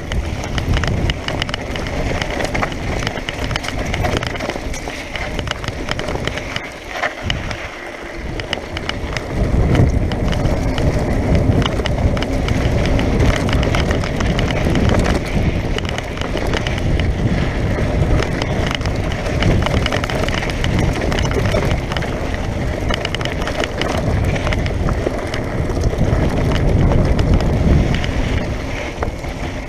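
Mountain bike riding fast downhill over a rough, dry dirt track: tyres crunching and the bike rattling, with wind rumbling on the microphone. It eases off for a couple of seconds about seven seconds in, then picks up again.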